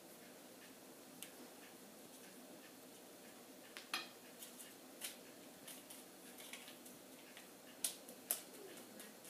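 Light, scattered clicks and taps of kitchen utensils against mixing bowls, a few single knocks over a faint background hiss, with two sharper taps close together near the end.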